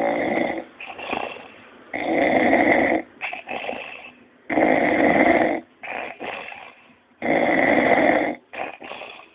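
A man snoring heavily: four loud snores about every two and a half seconds, each about a second long, with a few short, fainter breaths between them.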